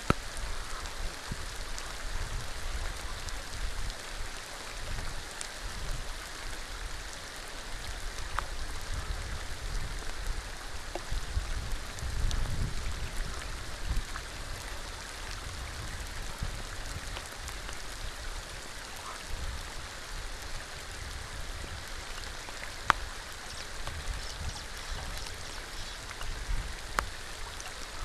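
Steady rain falling on a shallow pool: an even hiss dotted with many sharp drop ticks, over a low rumble. Two louder sharp ticks stand out, one at the very start and one about 23 seconds in.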